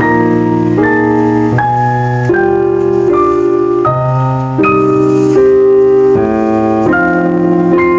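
Background music: keyboard or electric piano chords changing about every half to three-quarters of a second.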